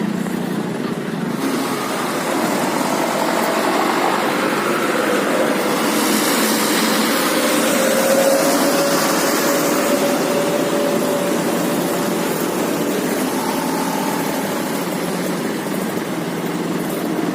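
Vehicle engines running in slow or stopped traffic, a steady drone. About six seconds in, one engine comes up with a slowly rising tone and hiss that fades out again by about twelve seconds.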